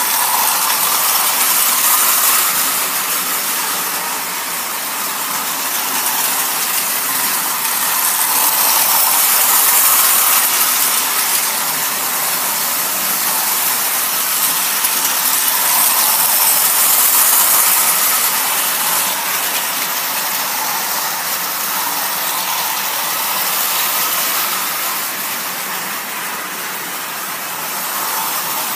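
Marx tinplate toy diesel trains running on their track: a steady mechanical whir of motors and wheels that grows louder and softer as the trains pass close by.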